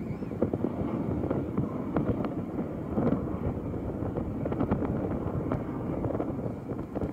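Wind buffeting the microphone: a steady low rumble broken by irregular crackles.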